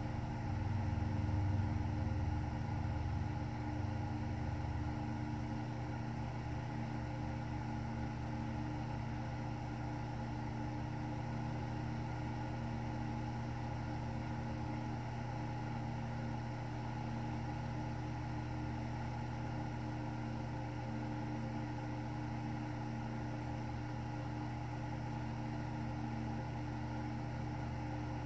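Steady low mechanical hum with a few constant tones over a rumble, a little louder in the first few seconds.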